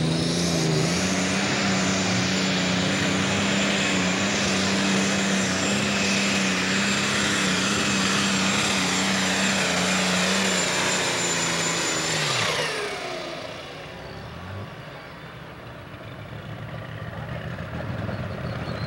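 John Deere Super Stock pulling tractor's turbocharged diesel engine running flat out under the load of the sled, with a steady high whine over it. After about twelve seconds the engine and whine wind down sharply as the pull ends, leaving a quieter engine sound that builds again toward the end.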